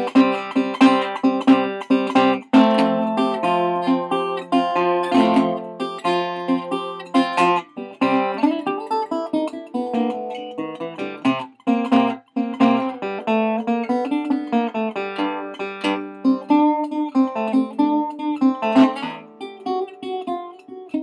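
Acoustic guitar playing a blues instrumental break in a quick run of picked notes and strums.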